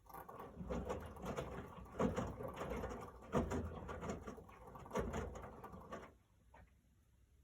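Miele W1 washing machine drum turning in the wash cycle with a rattling, knocking noise and heavier knocks a few times, stopping abruptly about six seconds in as the drum pauses; an unusual noise whose cause the owner does not know.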